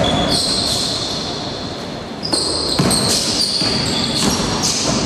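Basketball game play in a gym: sneakers squeaking on the wooden floor in short repeated squeals and the ball bouncing, echoing in the hall.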